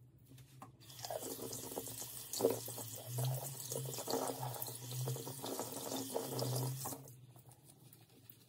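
Bathroom sink tap running, water splashing as a makeup brush is rinsed under the stream. The tap is turned off and the water stops suddenly about seven seconds in.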